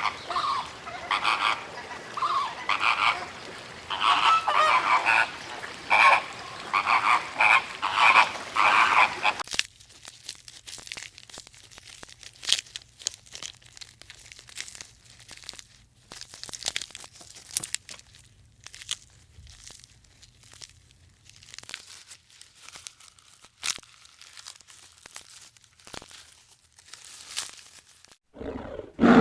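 Animal calls: a dense run of quick, repeated pitched calls for about the first ten seconds, then sparser short clicks and calls.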